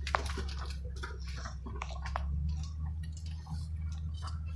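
Ford F-250 pickup's engine droning low and steady, heard from inside the cab, under irregular crackling and snapping as weeds and brush scrape and break against the truck pushing through them.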